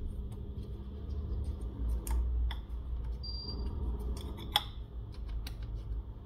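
Scattered light clicks and scrapes of a thin plastic card worked along the edge of a glued smartphone battery, as isopropyl alcohol is used to loosen the battery's adhesive. A steady low hum runs underneath.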